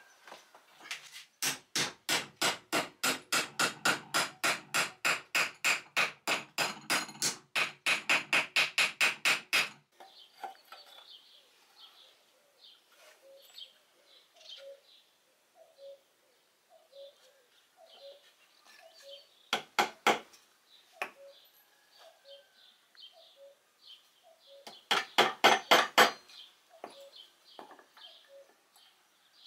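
Hammer blows on a metal strip clamped in a steel bench vise: a fast, even run of ringing strikes, about three a second, for the first ten seconds. After that come a few short groups of hammer taps driving nails into a wooden trestle, with a bird calling faintly about once a second in the background.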